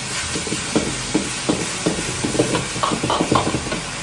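A metal ladle scraping and clacking against a wok while stir-frying, about three strokes a second, with food sizzling underneath.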